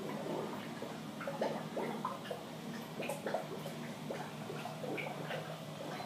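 Aquarium water bubbling and trickling in small, irregular blips over a steady low hum from the tank's submerged filter pump.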